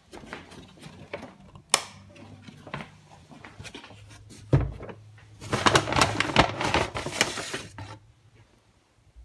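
Kitchen handling sounds: scattered clicks and knocks of things being picked up and set down, a heavy thud about four and a half seconds in, then a couple of seconds of dense rattling and clattering that stops about eight seconds in.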